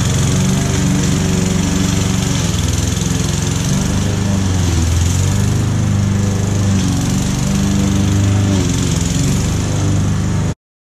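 Victa Classic Cut 18-inch petrol lawn mower engine running steadily while cutting grass, its note shifting a little with the load. The sound cuts off suddenly near the end.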